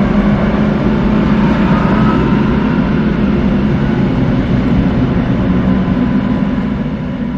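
Traffic noise recorded through a didgeridoo, the tube's resonance turning it into a steady droning rumble with a low hum and a fainter higher tone.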